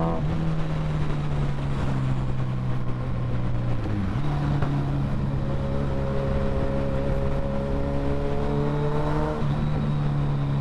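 Suzuki Hayabusa inline-four engine running through a loud aftermarket Brock's exhaust, heard from the rider's seat while riding at a steady pace. The pitch dips briefly about four seconds in, then rises slowly later on.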